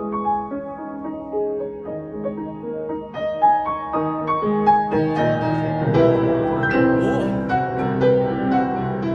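Solo piano improvisation: a melody picked out in single notes over a light accompaniment. About five seconds in it grows fuller and louder, with low chords underneath.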